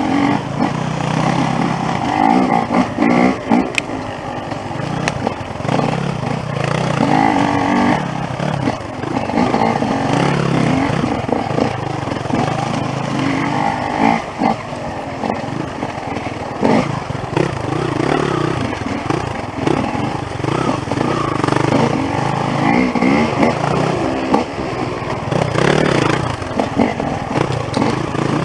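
Off-road dirt bike engines revving up and down unevenly as the throttle is opened and closed over and over on a rough trail.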